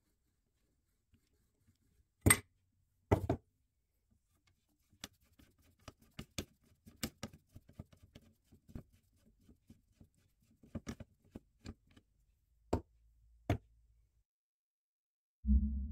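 Metal parts of a Millers Falls 207 bench drill clinking and knocking as they are handled and taken apart: two sharp knocks, then a scattered run of small clicks and taps, then two more knocks. A low tone starts just before the end.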